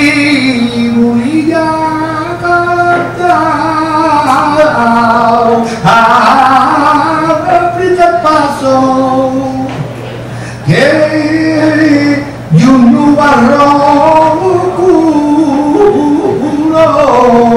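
Live flamenco song: a man sings long, ornamented, wavering phrases over Spanish guitar accompaniment, with fresh phrases breaking in sharply about six, eleven and thirteen seconds in. A steady low hum runs underneath.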